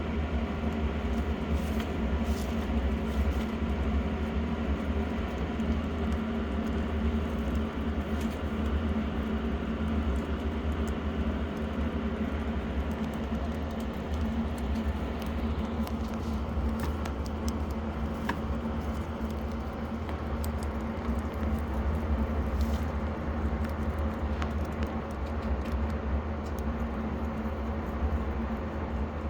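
Electric fan running with a steady, loud hum. Faint small clicks and rustles are scattered over it.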